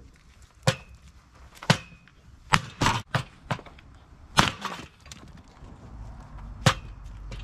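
Hand axe splitting firewood into small splits: about eight sharp, irregular chops and cracks of wood, a few with a brief ringing after the strike.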